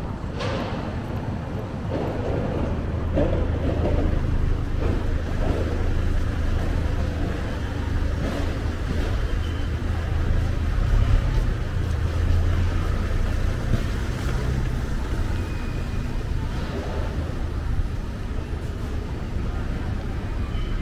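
City street traffic ambience: a steady low engine hum from vehicles close by, over a constant wash of street noise, with faint voices of passers-by now and then in the first half.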